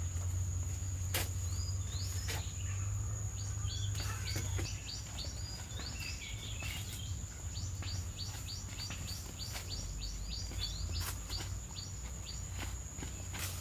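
Wild birds chirping in quick repeated short calls, over a steady high-pitched insect drone. A few faint clicks sound now and then.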